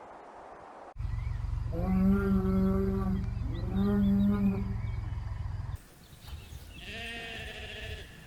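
Animal calls: two long calls with steady pitch, one right after the other, over a low steady rumble. A shorter, buzzier call follows near the end.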